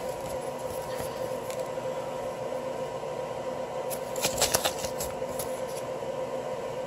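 Steady background hum, with a brief rustle and crackle of a paper leaflet being handled about four seconds in.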